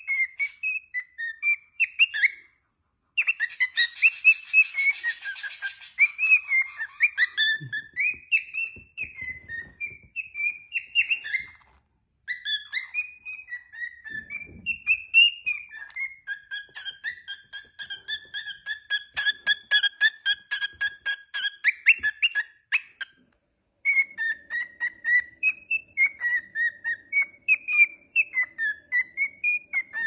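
Cockatiel whistling and chattering in quick warbling notes that rise and fall, broken by three short pauses. Through the middle stretch it repeats one note rapidly, several times a second.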